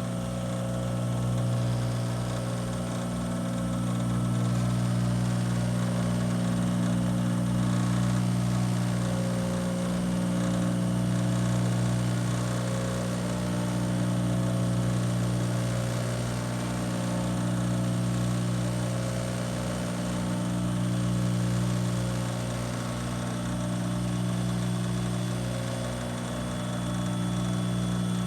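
Baldor 7351 half-horsepower grinder-buffer running steadily: a low electric-motor hum that swells and fades slowly every few seconds.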